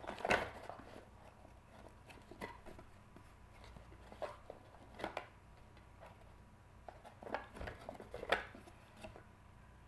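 Trading cards being handled and sorted by hand: scattered light taps and rustles, the loudest just after the start and near the end.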